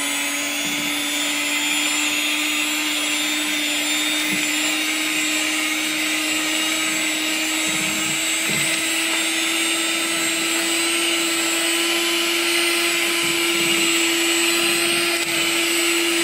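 Electric mixer running steadily with its beaters in a bowl of dry cookie-dough ingredients (flour, sugar, butter, black tea). It makes a constant motor whine that creeps slightly higher in pitch.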